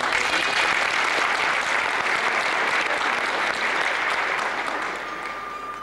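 Audience applauding, breaking out suddenly and fading after about five seconds. A thin steady tone comes in near the end.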